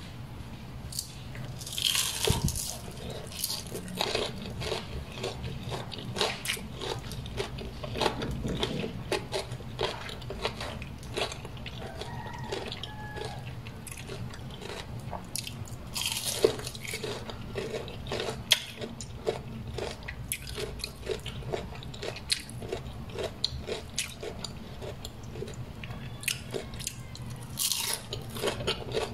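A person biting into and chewing crispy pan-fried grated-potato pancakes (gamjajeon), close-up crunching. Sharper crunchy bites come about two seconds in, around the middle and near the end, with steady crackly chewing between.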